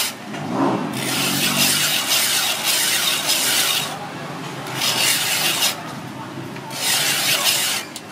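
Block ice being shaved in an ice-shaving machine, the blade rasping on the ice. It comes in three bursts: a long one of about three and a half seconds, then two of about a second each.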